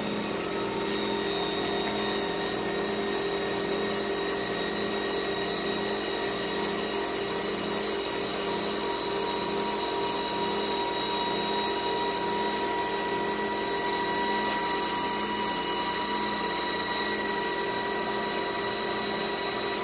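A pair of WindyNation 8-inch 12-volt electric linear actuators running with a steady motor whine as they slowly push a jet boat's engine hatch open.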